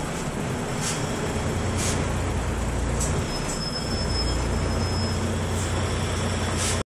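Volvo B12BLE city bus with an I-Shift automated gearbox, heard from inside the cabin while it drives: a steady low diesel engine and drivetrain drone. A few short sharp rattles or clicks come through it, and a thin high whine lasts for about two seconds midway.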